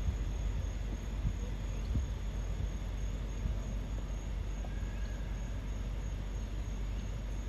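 Outdoor ambience: a steady low rumble under a faint, high-pitched insect chirp that repeats evenly, with a brief faint whistle about five seconds in. The peacock does not call.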